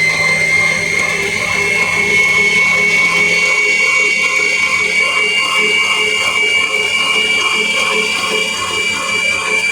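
Electric mixer motor running at speed with a high whine that creeps slightly up in pitch, over a low hum.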